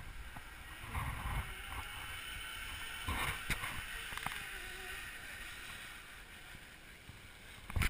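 Zip line trolley rolling along a steel cable as a rider comes in. A steady whir swells around three seconds in, then eases off toward the end.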